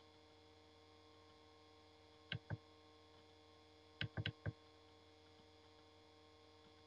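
Computer mouse button clicks over a steady electrical hum: two clicks about two seconds in, then four quick clicks about four seconds in.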